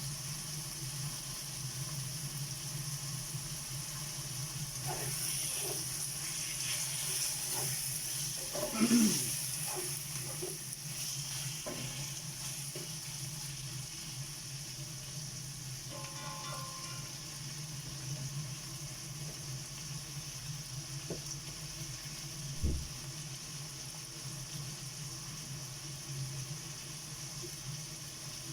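Food frying and sizzling in a pan over the steady hum of a kitchen exhaust fan, with a stretch of louder sizzling and utensil clatter peaking about nine seconds in and a single knock later on.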